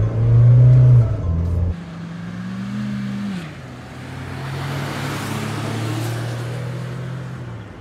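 Mahindra Thar 2.2 diesel engine held at high revs inside the cabin for the launch. Then, from the roadside, the Thar and a Hyundai Creta petrol accelerate past: an engine note rises and drops at a gear change, and tyre and wind noise swells as they go by.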